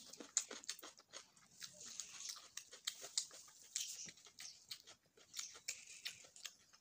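A person chewing close to the microphone: a rapid run of wet mouth clicks and smacks, with crisp crunches from a bite of raw cucumber.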